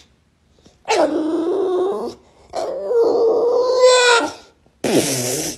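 Bulldog growling in two long drawn-out vocalizations, then a short harsh burst near the end.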